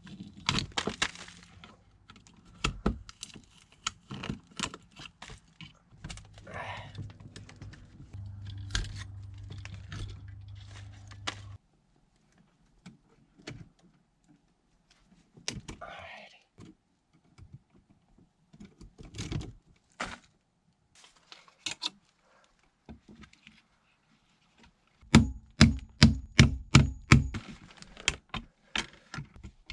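Clicks, taps and knocks of hand work on household electrical wiring and boxes, over a steady low hum that stops abruptly about twelve seconds in. Near the end comes a quick run of about a dozen sharp knocks.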